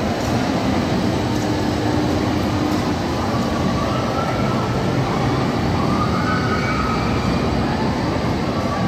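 Steady rumble of roller coaster cars running along a steel track, with a faint high whine rising and falling about six seconds in.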